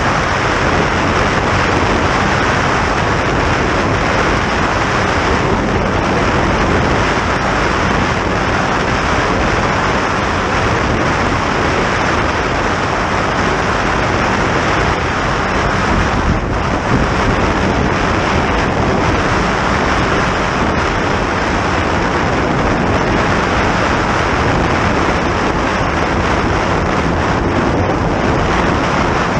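Wind rushing over the microphone and water noise from a boat running at high speed, with a low engine drone underneath. It stays loud and steady throughout.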